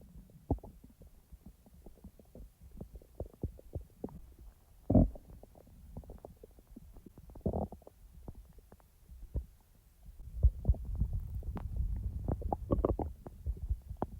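Human stomach gurgling and rumbling during digestion: a stream of small irregular pops and squelches, with a loud gurgle about five seconds in and another a couple of seconds later. From about ten seconds in, a denser, continuous low rumble.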